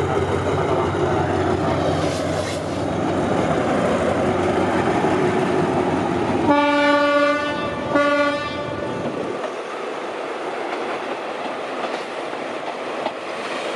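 An Alsthom diesel locomotive hauling a passenger train runs slowly past, its engine rumbling with the coaches rolling on the rails. About six and a half seconds in it sounds its horn twice, a long blast and then a short one.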